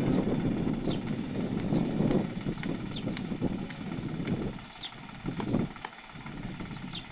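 Diesel tractor engine running hard under load while towing a drilling rig out of mud, the rough sound swelling and dipping, then easing off about four and a half seconds in.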